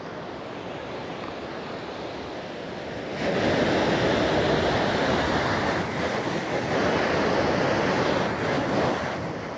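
Ocean surf with wind buffeting the microphone. A louder rush of water and wind begins about three seconds in and eases near the end.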